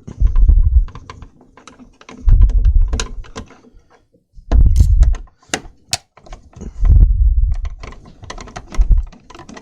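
A T10 screwdriver working the screws out of the plastic case of a Ridgid cordless jobsite radio: quick clicks and ticks of the bit in the screw heads and against the plastic, broken by about five spells of dull thumping and rumble as the radio is handled and shifted on the bench.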